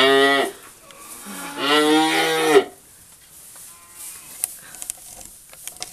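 Cattle mooing in a barn: one long moo ends just as the clip begins, and a second long moo starts about a second and a half in. Faint rustling and a few light knocks follow.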